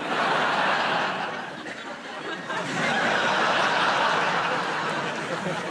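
Studio audience laughing. The laughter eases a little, then swells again about halfway through.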